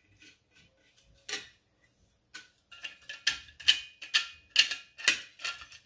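Small folding spade-hatchet tool being worked by hand: a few faint clicks, then from about halfway a run of sharp metallic clicks, roughly two a second, as its parts are folded and locked.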